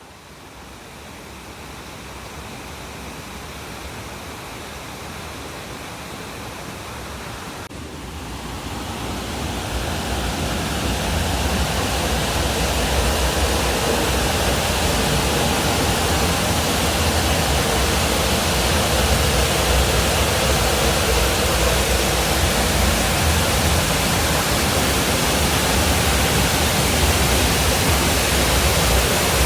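Waterfall rushing, a steady even noise that grows louder from about eight seconds in and then holds steady.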